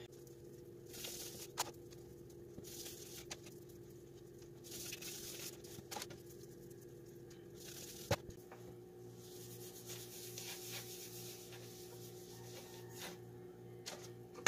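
Faint, repeated soft rubbing and scuffing of hands rolling yeast-roll dough into balls on a wooden cutting board, with a few light knocks, the sharpest about eight seconds in. A faint steady hum runs underneath.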